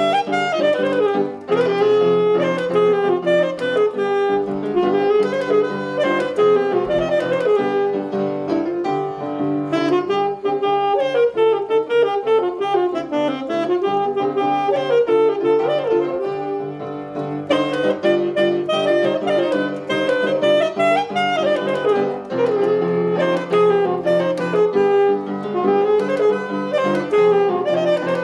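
A saxophone playing a flowing melody over grand piano accompaniment, a live duet by student musicians.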